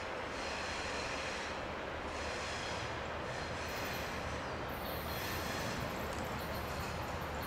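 Baldwin diesel switcher locomotive running with its train, a steady engine drone mixed with wheel and rail noise.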